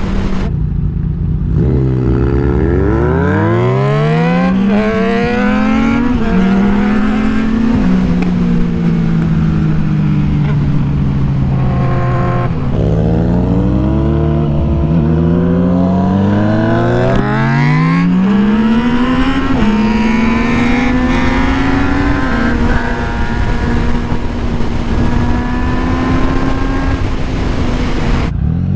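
Sport motorcycle engine accelerating hard through the gears: the revs climb, drop back at each upshift and climb again several times, then hold fairly steady near the end.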